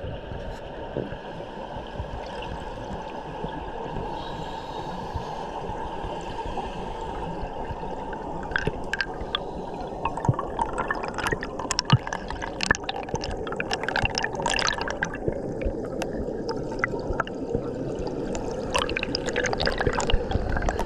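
Air bubbles heard underwater: a steady low wash with bubbling pops and crackles that grow busier about a third of the way in.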